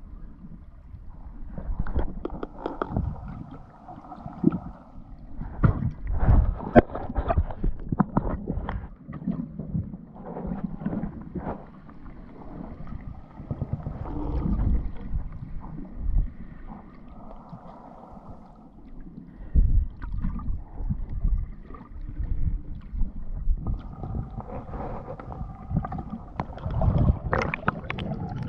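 Muffled underwater sound picked up by a camera in its housing: water swishing past with many irregular knocks and clicks.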